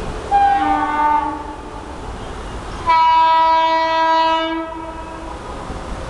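Indian Railways WAP-4 electric locomotive's dual-tone horn sounding twice: a short honk about half a second in that steps between two tones, then a louder, longer blast about three seconds in lasting nearly two seconds.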